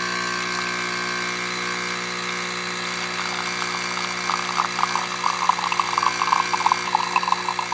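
Jura automatic coffee machine running its pump with a steady buzz as it dispenses coffee from both spouts into a mug. From about three seconds in, irregular crackling and spluttering joins the buzz.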